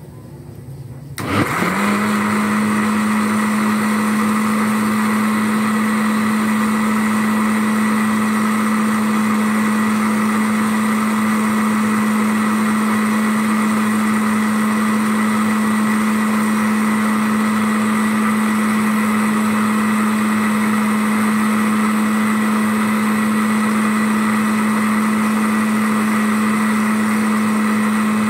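Electric blender motor starting about a second in, spinning up quickly and then running at one steady speed with a constant hum, grinding a liquid drink mix of ice cream, condensed milk and coconut.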